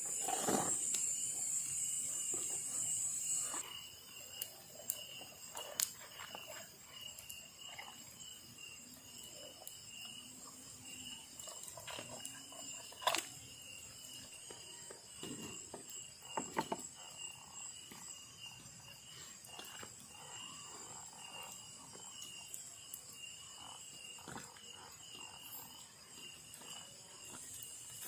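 Forest insects calling: a steady pulsing trill runs throughout, and a louder high-pitched buzz stops about three and a half seconds in. Scattered faint clicks and knocks come on top.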